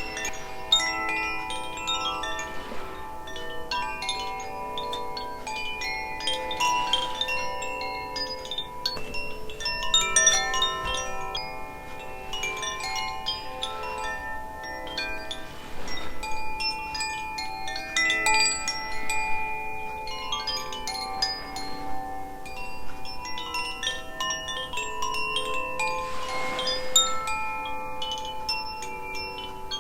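Two Koshi chimes, the Aria and Ignis tunings, rung together. Their tuned metal rods give overlapping clear ringing notes that swell with each new cluster of strikes every few seconds and let the notes hang on in between.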